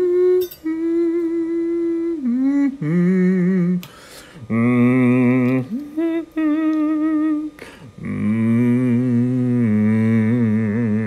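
A voice singing a wordless tune in long held notes, some with a strong wobbling vibrato, in phrases broken by short pauses.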